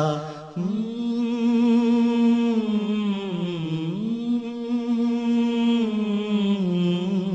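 A single unaccompanied voice singing long, drawn-out held notes of an Urdu devotional poem. The pitch slides down and back up about halfway through, then steps lower near the end.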